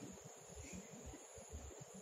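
Quiet night ambience: a faint, steady high-pitched drone of crickets over a low rumble.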